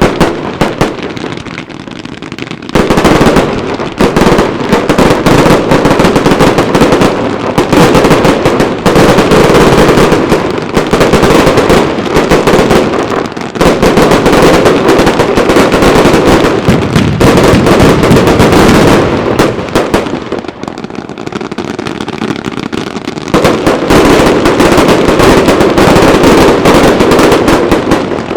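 Daylight fireworks going off in a dense, near-continuous barrage of rapid bangs and crackling, easing to a lighter, quieter stretch at the start and again about two-thirds of the way through.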